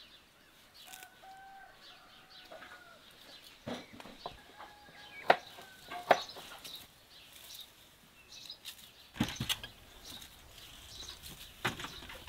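Outdoor garden ambience: a few sharp snaps and rustles at irregular intervals, the loudest near the middle and the end, with faint held bird calls in the background during the first half.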